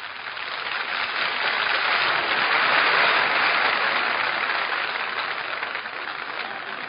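Theatre audience applauding, the clapping swelling to a peak about three seconds in and then slowly fading, heard through an old, band-limited broadcast recording.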